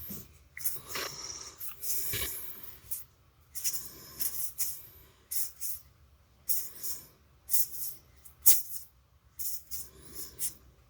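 Magic: The Gathering cards being flipped through by hand, card sliding over card in quick, irregular papery swishes.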